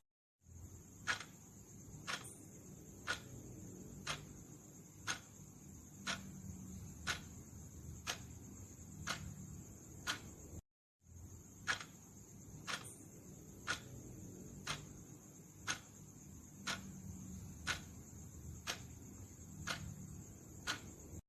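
Clock ticking about once a second over a steady faint high whine and low hum. The sound cuts out to silence for a fraction of a second twice, near the start and about halfway through.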